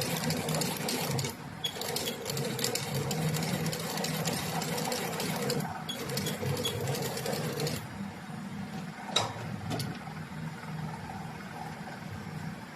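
Sewing machine stitching sandal material, running in fast runs of needle strokes with two short pauses, then stopping about eight seconds in. A single sharp click follows about a second later.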